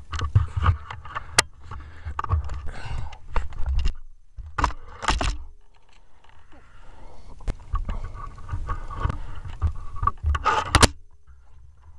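Air rifle and its scope-mounted camera being handled: irregular clicks, knocks and rubbing over a low rumble, with one sharp click near the end.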